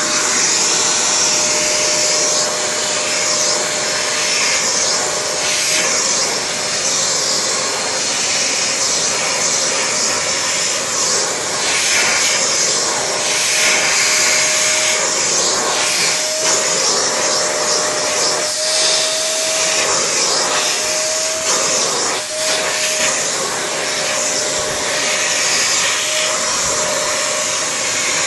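Vacuum cleaner running steadily with its brush nozzle drawn through a cat's fur. A steady motor whine sits over the suction noise and wavers slightly in pitch about midway.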